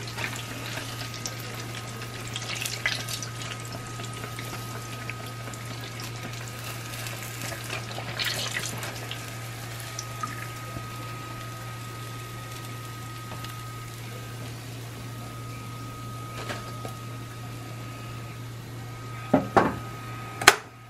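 Fish frying in hot oil in a cast-iron skillet: a steady sizzle. Near the end, a few sharp knocks of a utensil against the pan.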